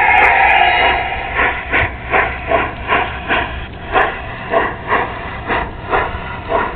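Garden-scale model train rolling past at track level: a hiss in the first second, then a steady clicking rhythm of about three beats a second as the cars go by.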